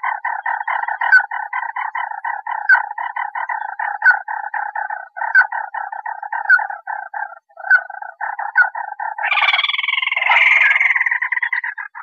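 A crake calling: a fast, even run of short repeated notes, several a second, then from about nine seconds in a louder, harsher rattling trill.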